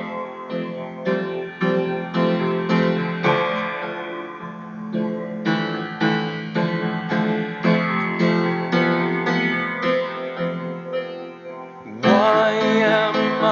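Piano playing a slow instrumental passage of a sad ballad, notes and chords struck about twice a second and left to ring. Near the end the music grows louder and fuller as another part with gliding pitches comes in.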